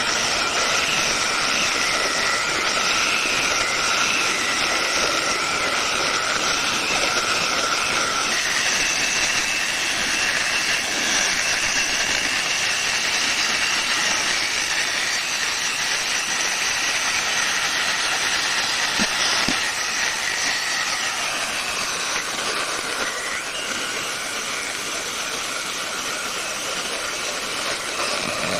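Electric saw cutting wood: a steady, hissing whine that runs on without a break. Its tone steps higher about eight seconds in, and it gets slightly quieter in the last third.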